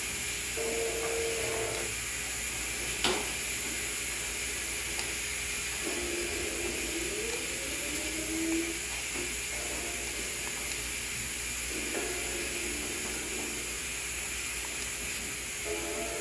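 Steady hiss, with faint, brief snatches of a film soundtrack from a TV's speakers that break off every few seconds as the DVD is skipped through chapter by chapter; a single sharp click about three seconds in.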